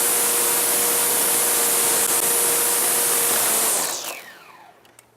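Corded electric power tool running at full speed, then switched off about four seconds in, its motor winding down with a falling whine.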